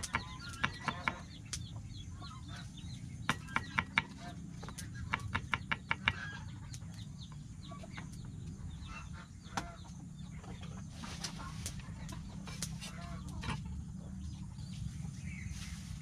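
Large kitchen knife chopping long beans on a wooden cutting board: quick runs of sharp knocks on the board, about five a second, then slower, scattered cuts toward the end.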